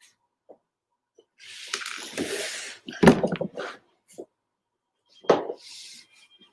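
Drinking from a drink can close to a desk microphone: a hiss, then louder bumps and swallowing sounds, with faint laptop keyboard clicks now and then.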